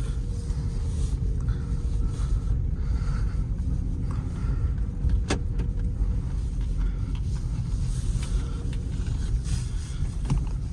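Road and tyre rumble inside a Peugeot 308's cabin as it drives over a rough road, with one sharp tick about five seconds in and a fainter one near the end. The suspension is quieter: with ordinary anti-roll bar links fitted in place of the polyurethane ones, the knocking has died down.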